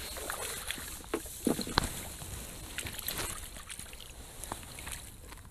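Water splashing and dripping as a rainbow trout is scooped into a landing net and the net is lifted out of the water, with a few light knocks.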